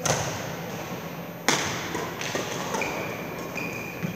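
Badminton rally: sharp racket strikes on the shuttlecock, one at the start and a louder one about a second and a half in, echoing in the hall. Shoes squeak on the court floor near the end.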